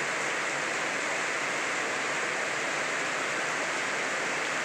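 Heavy rain falling steadily on wet paved ground, an even, unbroken rush of noise.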